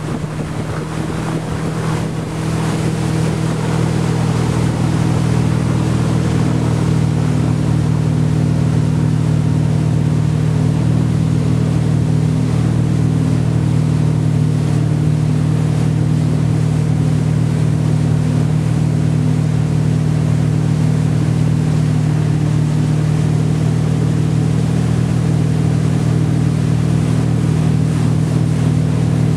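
Motorboat engine running steadily at towing speed, with the rush of its wake water. The engine grows louder over the first few seconds, then holds an even drone.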